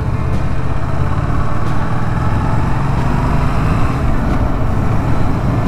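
Yamaha MT-07's parallel-twin engine running steadily on the move, with steady wind rush on the microphone.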